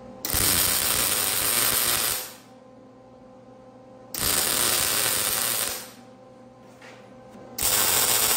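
Arc welder tacking a steel plate to a motorcycle frame: three crackling bursts of the arc, each about a second and a half to two seconds long, starting and stopping abruptly.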